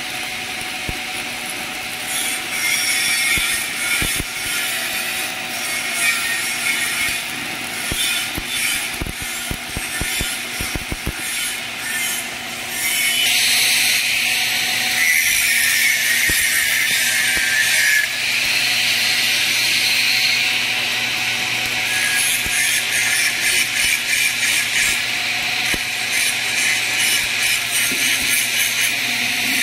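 Stick (shielded metal arc) welding: the electrode's arc crackles and hisses, full of fine pops. The crackle gets louder and fuller about 13 seconds in.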